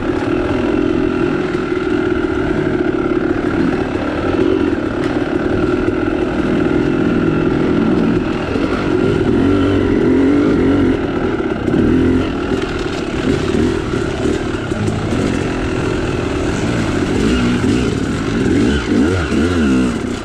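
Yamaha YZ two-stroke dirt bike engine ridden on a trail, revving up and down as the throttle is worked.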